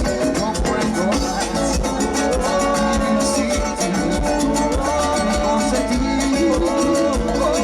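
A live Latin tropical dance band playing an instrumental passage: a steady, driving percussion beat under a melody line.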